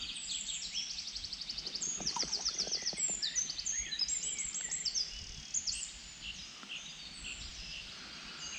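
Several songbirds singing over each other: fast high trills and runs of quick repeated notes, busiest for the first six seconds and thinning after that.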